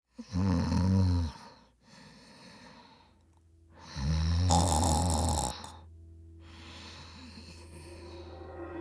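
A person snoring in sleep: two long, loud snores about four seconds apart, with softer breathing between them.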